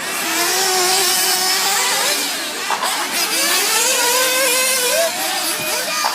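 Several small nitro RC buggy engines racing together, a layered high whine of overlapping pitches that rise and fall as the cars accelerate and brake around the track.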